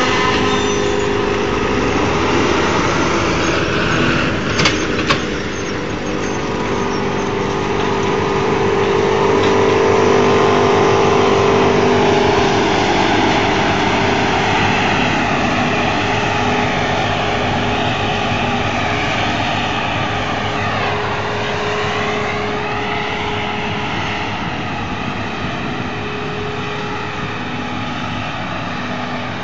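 New Holland FX60 self-propelled forage harvester and a Fendt tractor running together while chopping maize for silage: a loud, steady engine and cutter drone. Two short sharp knocks come about five seconds in, and the pitch sags and recovers about twenty seconds in.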